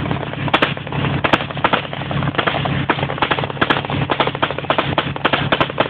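Rapid, irregular gunfire cracking over the steady drone of a military vehicle's engine.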